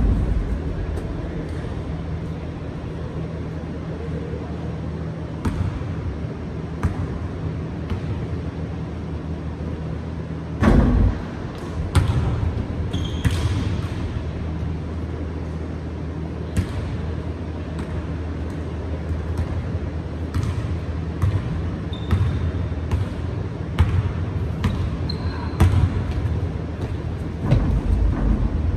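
A basketball bouncing and being dribbled on a hardwood gym floor in one-on-one play, a run of sharp slaps and bangs with a heavy thump about eleven seconds in. A few brief high squeaks, and a steady low hum throughout, in a large echoing gym.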